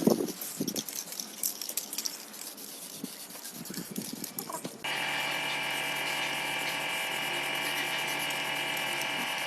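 A small electric motor switches on abruptly about five seconds in and runs at a steady, unchanging pitch. Before it, only faint scattered handling noises.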